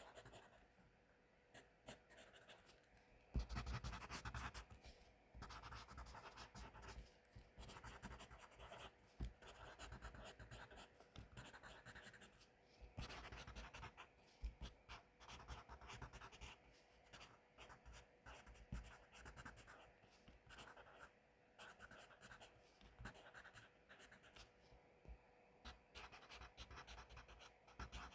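Pencil writing on paper: faint, quick, uneven scratching strokes, with a louder stretch of scratching about three seconds in.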